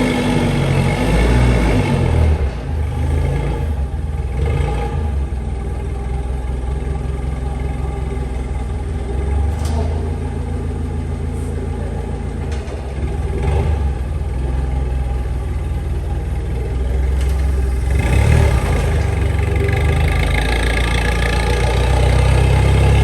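Forklift engine running, with the revs rising and falling as it manoeuvres. It gets louder for the last few seconds.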